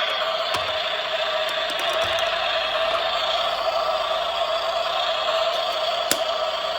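Toy work vehicle running with a steady mechanical whir, with a few sharp plastic clicks over it.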